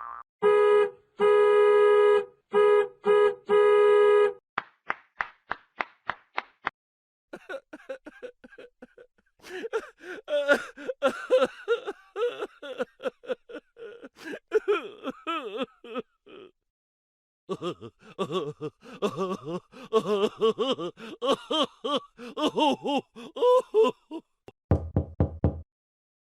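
A string of cartoon-style comedy sound effects. Several short pitched honks come first, then a quick run of knocks, then two long stretches of rapid, jittery pitched blips, with a few low pulses near the end.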